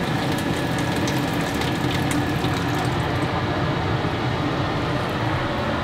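Excess cooking liquid from a frying pan of beef and capsicum being poured off into a stainless steel sink, with a wooden spatula holding back the food; the pouring hiss fades about halfway through, over a steady low hum.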